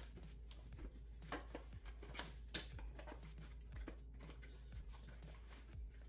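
Faint handling noise of packaging: crinkling bubble wrap and a small cardboard box being lifted and turned, with a few light taps and scrapes.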